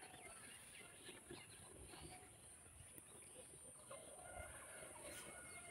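Near silence: faint, scattered bird chirps over a steady high hiss.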